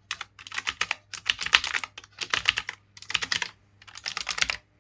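Fast typing on a Cosmic Byte Pandora mechanical keyboard with clicky Otemu Blue switches, in five quick flurries of keystrokes separated by short pauses.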